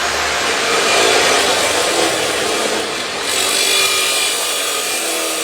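Electric power saw cutting steadily through the metal of a homemade rifle.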